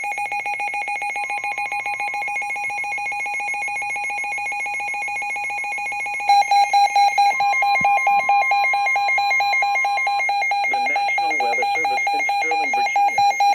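Emergency alert tone for a severe thunderstorm warning on a weather radio: a rapidly pulsing electronic alarm that turns louder and choppier about six seconds in, with a faint steady tone beneath parts of it. A broadcast voice starts under the alarm a few seconds before the end.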